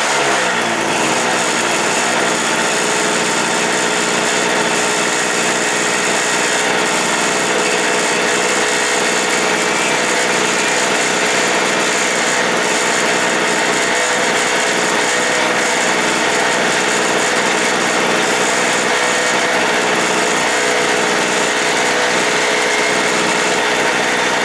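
Small portable generator engine, a Harbor Freight Tailgater, running steadily at a fairly high pitch.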